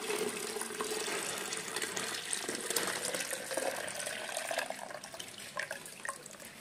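Water pouring from a long rubber glove into a plastic jug, a steady splashing stream as the glove is emptied after a leak test. It thins to a dribble and a few drips near the end.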